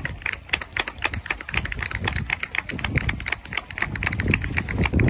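Crowd of supporters applauding: many hands clapping in a dense, uneven patter.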